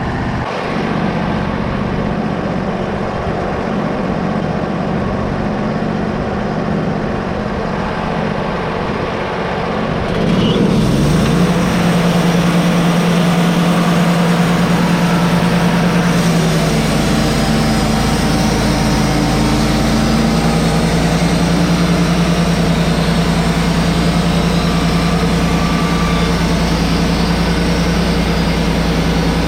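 Wood-Mizer LT35HD portable sawmill running, its engine humming steadily; about ten seconds in the band saw blade goes into the red oak log and the sound gets louder with a steady hissing cut over the engine, which holds to the end.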